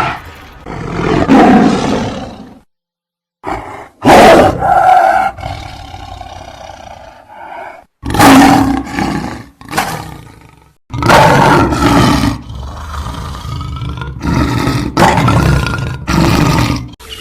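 A series of loud roars from a sound-designed fictional creature, each call lasting about a second or two, some with a clear pitch, separated by short gaps and a brief total silence about three seconds in.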